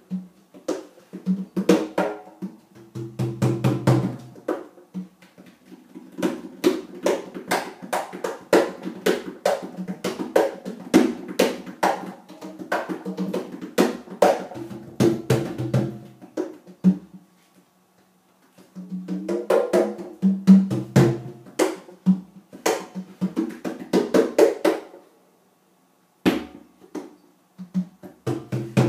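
Conga and tumba played by hand in a rhythmic pattern of sharp strikes, with deeper tumba tones in places. The playing breaks off twice for about a second.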